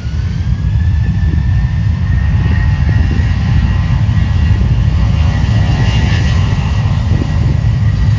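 Ryanair Boeing 737's twin jet engines at takeoff power as the airliner starts its takeoff roll: a deep, loud rumble with a whine that rises in pitch in the first second and then holds steady.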